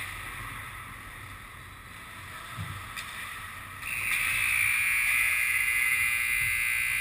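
Indoor ice rink ambience: a steady hiss with a couple of faint clicks. About four seconds in, a louder steady hiss starts abruptly and holds.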